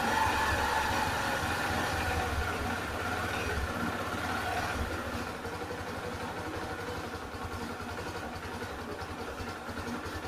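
Yamaha Gladiator's single-cylinder four-stroke motorcycle engine idling steadily, slowly settling and getting a little quieter. The valve clearance has just been readjusted, and the owner judges the engine good to go.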